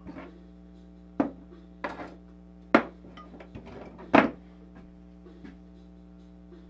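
Metal hand tools, pliers and crimpers, clattering as they are picked up and set down on a wooden workbench. About five sharp clacks in the first four and a half seconds, then only small ticks.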